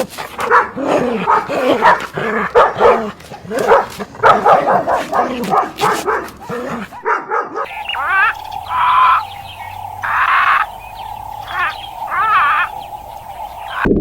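A dog barking and yipping in a rapid series of short calls, which stop abruptly about halfway through; after that comes a steady hum with four short, louder bursts.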